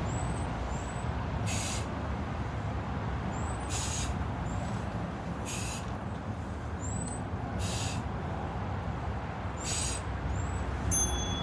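Heavy hissing breaths about every two seconds, a man exhaling with each side-to-side leg swing of the windscreen-wiper exercise, over a steady low rumble. Near the end a short beep from the interval timer marks the end of the set.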